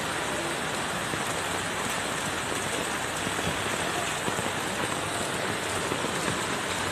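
Heavy rain pouring down steadily onto a flooded street, an even hiss of rain on standing water.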